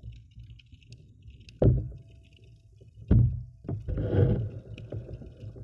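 Underwater sound picked up by a submerged camera: a low rumble of moving water with two sudden thumps, about a second and a half in and again at three seconds, then a short burst of churning water around four seconds.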